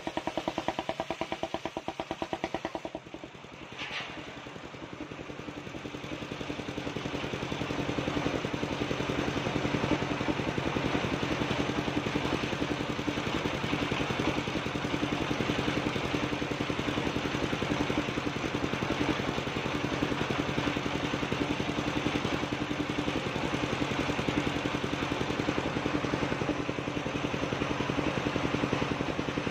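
Engine-driven portable circular sawmill running with a steady pulsing beat while its large circular blade rips lengthwise through a log. After a brief lull about three seconds in, the cutting noise builds over a few seconds and then holds steady.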